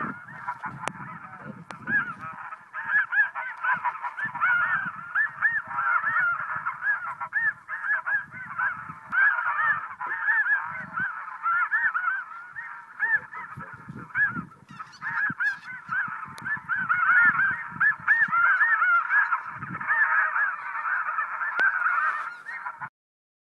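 A flock of geese calling, many short, high yelping honks overlapping in a dense chorus, with low rumbling thumps underneath; it cuts off suddenly near the end.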